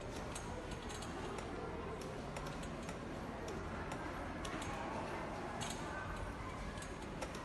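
Flashlight switch clicking on and off in quick pairs at uneven intervals as Morse code dots and dashes are flashed.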